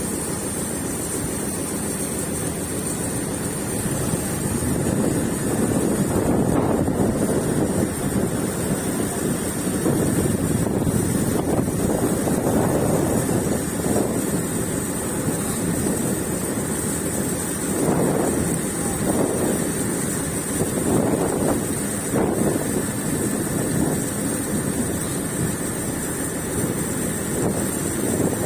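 Fishing boat under way, its engine running steadily with water rushing past the hull, and wind gusting on the microphone in surges every few seconds.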